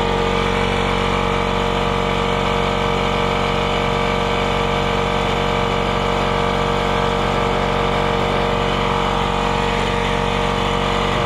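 Campbell Hausfeld twin-tank air compressor running steadily, pumping up its tanks.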